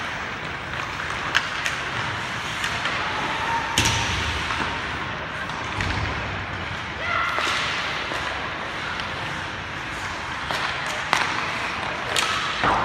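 Ice hockey play: the steady scrape of skates on the ice, broken by sharp clacks of sticks and puck and thuds of the puck against the boards. The loudest thud comes about four seconds in, with a cluster of clacks near the end.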